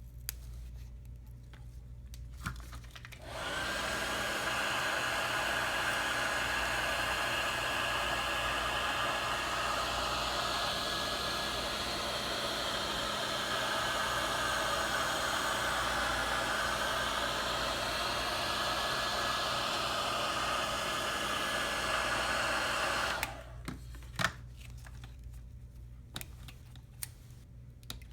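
Heat gun blowing steadily for about twenty seconds, switched on a few seconds in and cut off near the end, warming the touchscreen digitizer to soften its adhesive from the LCD. Small sharp clicks come before and after it.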